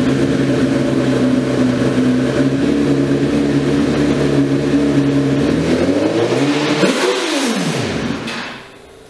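Honda CBR1000RR inline-four motorcycle engine running steadily just after starting, its race tune stripped of sensors and emissions gear. About six seconds in the pitch rises a little, then falls away as the engine winds down and stops near the end.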